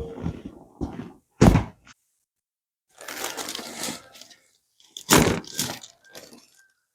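Chiropractic adjustment: a series of sudden cracks and thumps as joints are manipulated. The loudest comes about one and a half seconds in and another about five seconds in, with a noisy stretch of about a second between them.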